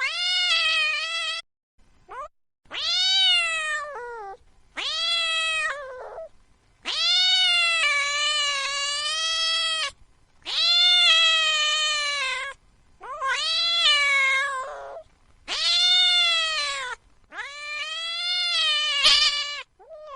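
A cat yowling: about nine long, drawn-out calls, each held a second or more and dropping in pitch at the end, with short pauses between them. These are angry cat caterwauls.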